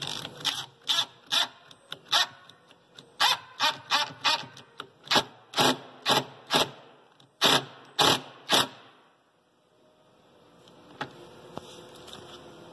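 RIDGID cordless driver run in a quick series of short trigger bursts, about two a second, driving screws through a steel concealed cabinet hinge into plywood. The bursts stop about three-quarters of the way in.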